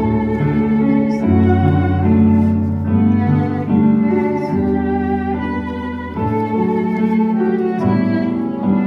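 An ensemble of Aerophone digital wind instruments with cellos and violins playing a slow melody in held notes over a sustained bass, changing chord about every second.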